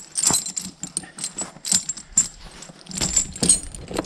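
Metal tire chain links clinking and jingling in irregular clicks as the chain is pulled up and worked by hand to hook its fastener on a tractor's rear tire.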